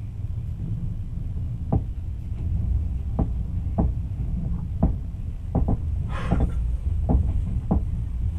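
Train carriage rumbling along the track, with sharp irregular knocks and clacks of the wheels and carriage, and a brief hiss about six seconds in.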